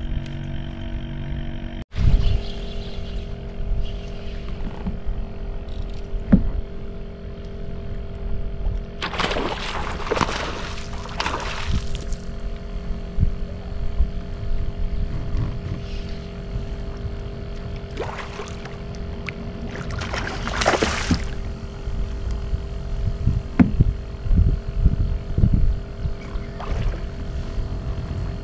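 Background music with steady held tones over a low rumble, with two short noisy bursts about ten and twenty-one seconds in.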